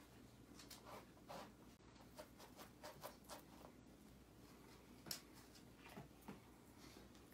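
Faint scratching and scuffing of a dachshund's claws and body on a rubber yoga mat as it rubs and rolls about: a quick, irregular string of short scratches.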